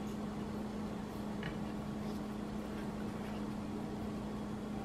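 A steady low hum, with a few faint soft rustles of a wonton wrapper being folded by hand.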